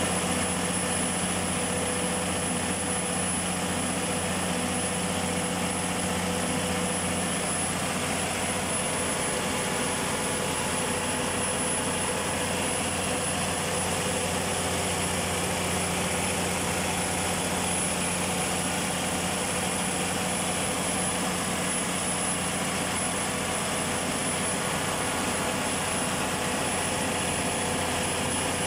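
Freshly overhauled Perkins 2200 series diesel genset engine running steadily at constant speed, with a thin, steady high whine over its drone.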